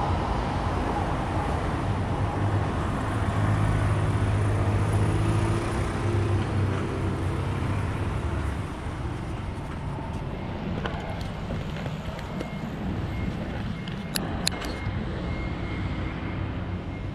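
Electric commuter train running past, a steady low hum and rumble that dies away about halfway through. Fainter rail and street noise follows, with a few sharp clicks near the end.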